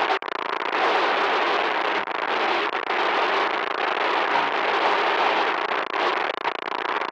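Loud, harsh static noise: a dense crackling hiss that cuts out for an instant just after the start, then carries on unbroken.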